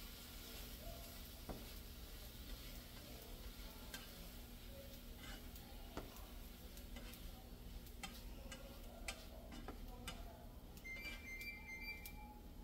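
Sliced kielbasa sausage sizzling faintly in a skillet, with scattered clicks and scrapes of a spatula against the pan as the pieces are turned.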